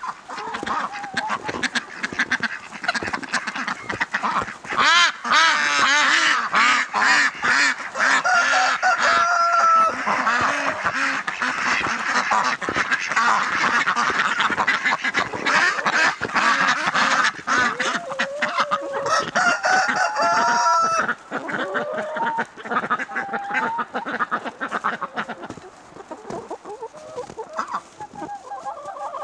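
A mixed flock of chickens, ducks and a goose calling together: hens clucking throughout, with loud quacking and honking packed thick through the middle of the stretch, easing to quieter calling near the end.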